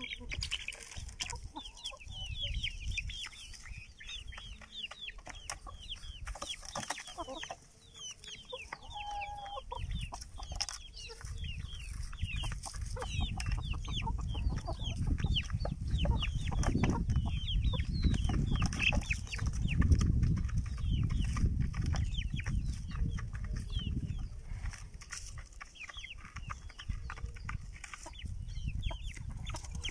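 Country chickens feeding: chicks peeping in many quick falling chirps almost without pause, with hens clucking among them. A low rumble swells through the middle stretch.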